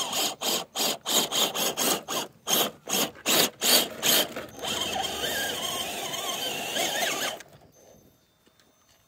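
The electric motor and gear drive of an Axial SCX10.2 1/10-scale RC rock crawler whines in short throttle pulses, about three a second. Then it runs steadily for about three seconds as the truck climbs the rock step, and stops suddenly.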